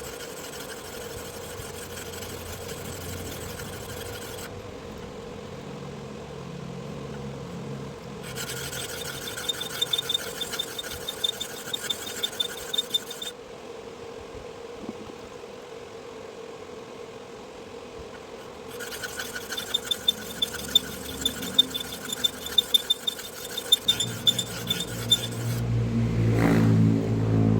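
A powered sharpening machine's motor hums steadily while a meat-mincer blade or plate is ground against the abrasive in three spells of gritty scraping with sharp ticks, with quieter motor-only pauses between them. A louder, low engine-like drone builds near the end.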